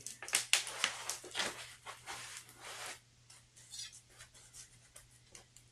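Foam packing wrap around a potted plant rustling and crinkling as hands handle it: busy for about three seconds, then only faint scattered rustles.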